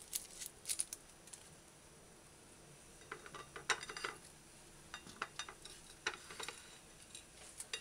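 A small kitchen knife peeling and trimming an onion. It makes scattered light clicks and taps in small clusters, the blade knocking against a ceramic plate and the countertop.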